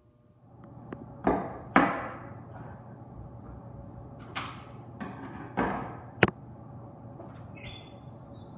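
Kitchen knife chopping through an apple onto a countertop, with things set down on the counter: a series of sharp knocks and thuds, the loudest two about a second and a half in and a sharp click about six seconds in. Near the end a brief squeak as the wall oven's door is pulled open.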